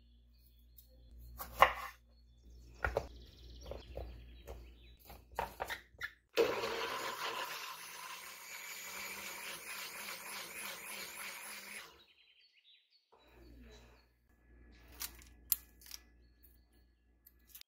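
Kitchen work sounds: scattered clicks and knocks, then a steady rushing noise that starts suddenly about six seconds in, lasts about six seconds and cuts off, followed by a few more light clicks.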